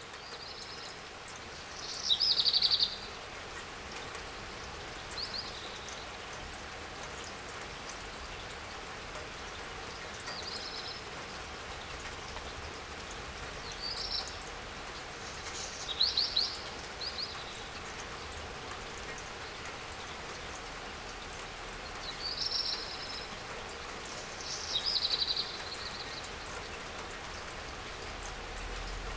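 Steady rain falling, with a bird giving short, high chirps every few seconds; the loudest come about two, sixteen and twenty-five seconds in.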